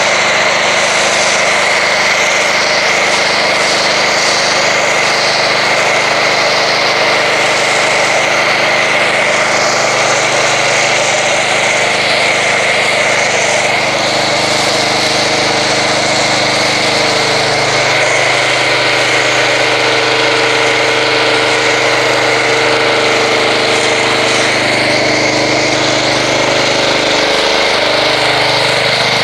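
A pressure washer's engine running steadily while an MTM foam cannon sprays soap foam onto a car with a continuous hiss.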